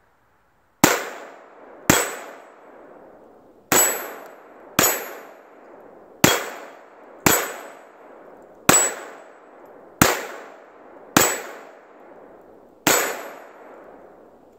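Ten pistol shots fired at steel targets, in five pairs about a second apart within each pair, each shot trailing off in a short echo with a faint high metallic ring.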